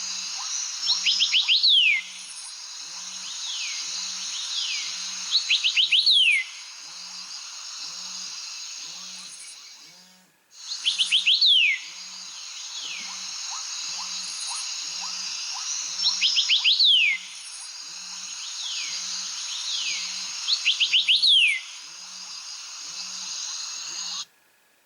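A mobile phone's nature-sound alarm tone playing: groups of quick, falling bird chirps repeat every few seconds over a steady hiss, with a low tick about once a second. The tone drops out briefly about ten seconds in, starts over, and cuts off suddenly near the end.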